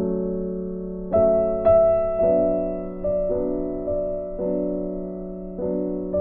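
Background music: slow keyboard chords, a new chord struck about once a second.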